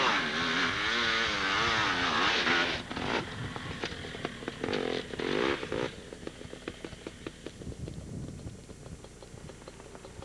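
Suzuki LT500R Quadracer ATV's 500 cc two-stroke engine revving hard, its pitch swinging up and down through the first three seconds, with another short loud burst around five seconds in. After that it runs quieter and lower, with rapid, uneven ticks.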